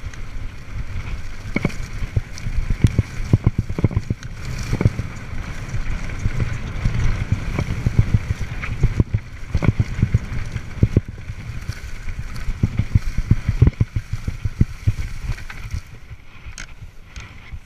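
Whyte mountain bike ridden fast down a dirt singletrack: steady wind rumble on the camera microphone with frequent knocks and rattles as the bike goes over bumps, easing a little near the end.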